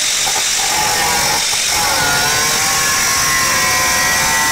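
Angle grinder with an iron-cutting disc cutting through a sunmica laminate plate: a loud, steady whine whose pitch dips and wavers as the blade bites.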